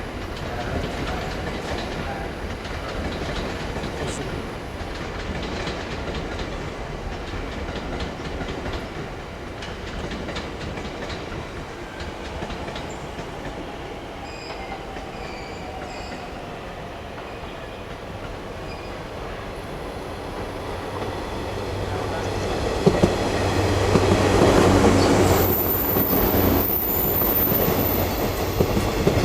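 Electric train running over the rails at a station, wheels clattering over rail joints. It grows louder from about two-thirds of the way through as a train comes close, with a steady low hum and a couple of sharp clicks.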